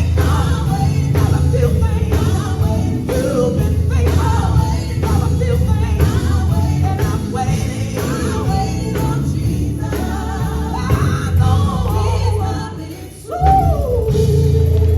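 Live gospel music: singing over a band with heavy bass and a steady drum beat. Near the end the sound drops away briefly, then a voice comes back in on a long note that slides down.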